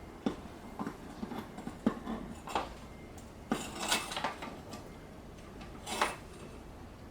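Metal tools and parts being handled, giving irregular metallic clinks and knocks, the loudest about two, four and six seconds in.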